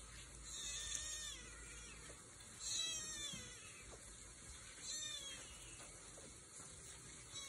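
Three high-pitched kitten mews, each falling in pitch, about two seconds apart.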